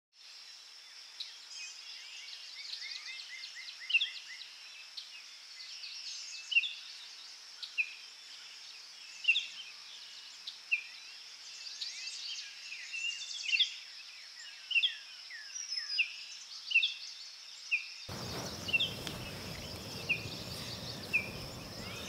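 Several birds chirping in short, repeated calls and quick sweeping notes over a steady high-pitched drone of insects. About eighteen seconds in, a broad soft hiss joins underneath.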